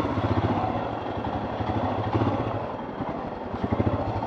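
Royal Enfield Scram 411's single-cylinder engine running at low revs, a steady stream of firing pulses. It has just been bump-started because the electric starter will not turn it over.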